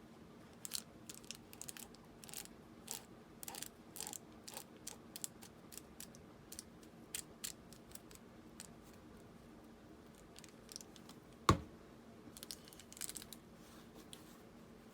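Small handling noises of craft work at a tabletop: scattered light clicks, taps and rustles as fabric and a bubble mailer are handled and glued, with one louder knock about two-thirds of the way through.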